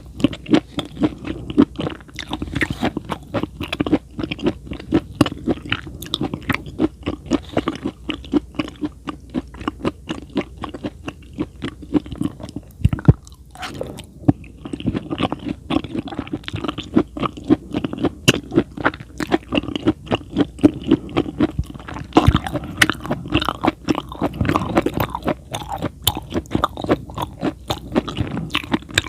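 Close-miked chewing of food with the mouth: a steady run of short, sharp clicks, a couple or more a second, with a brief pause about thirteen seconds in.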